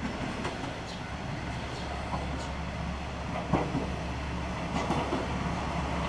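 JR West KiHa 120 single-car diesel railcar approaching over pointwork, its diesel engine giving a steady low rumble that grows slightly louder. Its wheels clack now and then over the rail joints and points.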